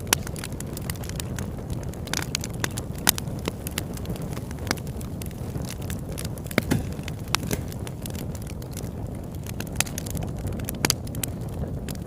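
Wood campfire burning, crackling with irregular sharp pops over a steady low rush of flame.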